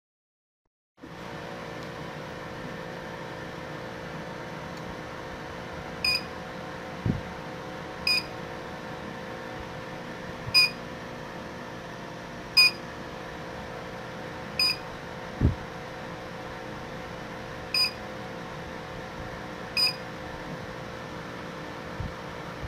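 IPL machine's cooling-water flow alarm beeping: short high beeps about every two seconds, starting a few seconds in, over the steady hum of the cooling fan and pump, with a couple of dull knocks. The alarm signals that the cooling-water circulation is blocked, tripped by the reed-switch flow sensor.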